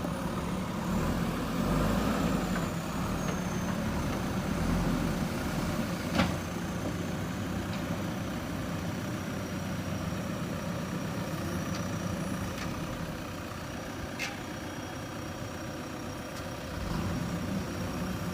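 JCB 3DX backhoe loader's diesel engine running steadily, with two sharp knocks, one about six seconds in and another about fourteen seconds in.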